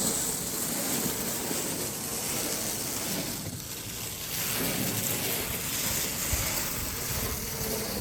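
Snow shovel scraping snow along a paved driveway in one long continuous push, a rough hiss that swells and eases, starting and stopping abruptly.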